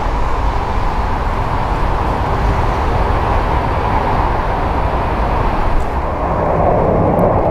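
Jet engines of a widebody twin-engine airliner at takeoff thrust as it climbs away, a loud steady deep rumble. About six seconds in the sound dips and shifts as the noise of another departing jet takes over.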